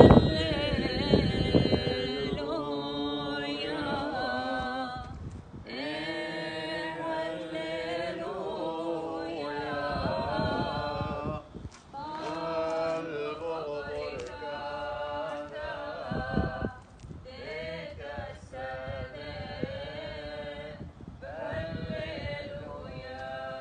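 Unaccompanied voices singing a Chaldean liturgical chant in long phrases, with short breaks between them about every five or six seconds.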